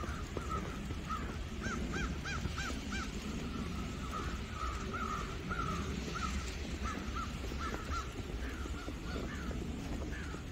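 Crows cawing repeatedly: a quick run of four caws about two seconds in, then scattered caws, over a steady low rumble.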